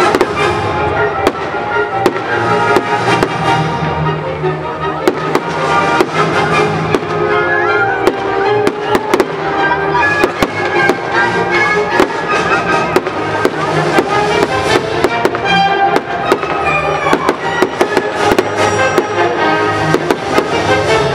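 Fireworks display: many sharp bangs of bursting shells, coming thick and fast, over loud music.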